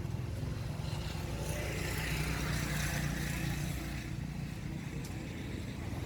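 A motor vehicle's engine running steadily with a low hum, while a rushing noise swells about a second and a half in and fades a couple of seconds later.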